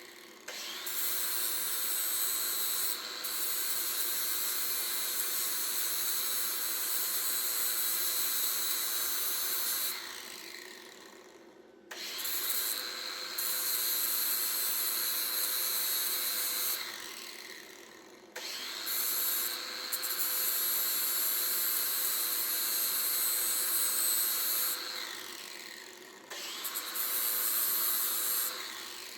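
Electric grinder cleaning up a pulley and its hub to prepare them for welding. It runs in four long bursts, each winding down after the trigger is let go.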